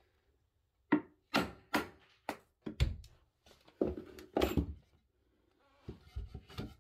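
A string of about eight irregular wooden knocks and thuds as a lumber block is knocked and fitted into place against the floor joists, followed by softer handling noise near the end.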